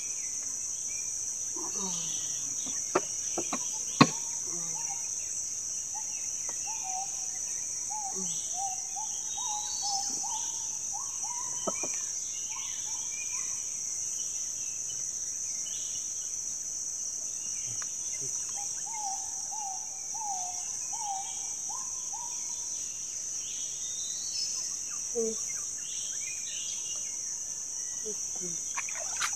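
Steady high-pitched insect chorus, with a bird calling in runs of short repeated notes during two stretches, and two sharp knocks about three and four seconds in, the second one loud.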